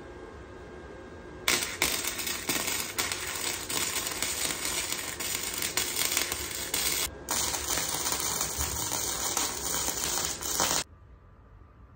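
Arc welder crackling and sizzling as a bead is run on steel frame tubing. Two welds: one starts about a second and a half in and breaks off around seven seconds, and the second starts straight after and stops a second before the end.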